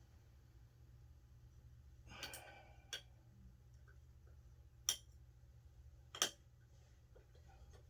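Small hand wrench tightening a screw on the Onewheel hub: four sharp, isolated clicks of metal tool on metal, unevenly spaced a second or two apart, with a short breath about two seconds in and a low steady hum underneath.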